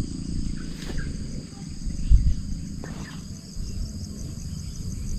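Insects shrilling steadily in several high, unbroken tones, over an uneven low rumble on the microphone, with two faint clicks about 1 and 3 seconds in.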